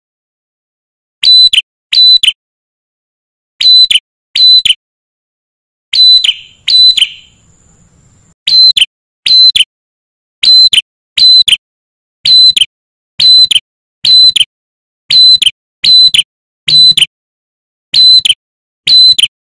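Male ashy tailorbird calling: loud, sharp chirping notes, each a quick downward slur, given in pairs and runs of about two a second, with a few longer pauses in the first half.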